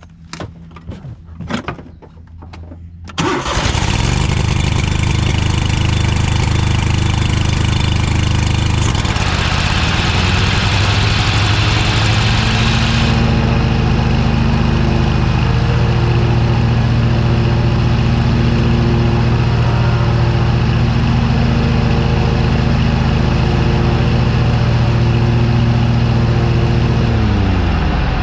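Cub Cadet GTX 2100 lawn tractor engine: a few clicks and knocks, then it starts about three seconds in and runs steadily, with the mower blades turning on the newly replaced front PTO belt. Near the end it is shut off and winds down, falling in pitch. To the owner it sounded like she's doing okay.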